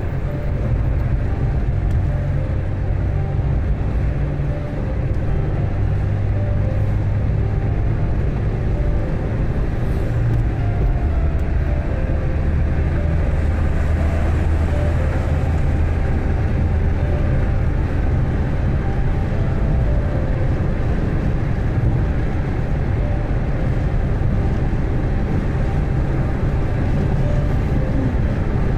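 Car driving on a highway: a steady low engine drone with road and tyre noise. The engine note drops a little about twelve seconds in.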